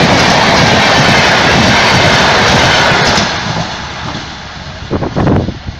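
Blue-and-yellow LHB coaches of the Gatimaan Express passing close at speed: a loud, steady rush of wheels on rail and air. About three seconds in it drops away sharply as the last coach clears, leaving a fading rumble.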